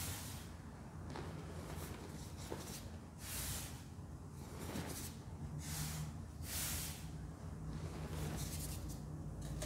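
Fine dry Ajax cleanser and baking soda powder pouring and sifting from hands onto a packed powder block: a series of soft hissing swishes, about one a second, two of them louder.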